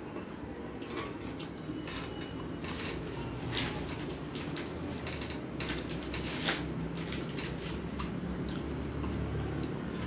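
Fingers picking apart a piece of rohu fish on a stainless steel plate, giving scattered light clicks and taps on the metal over a steady low hum.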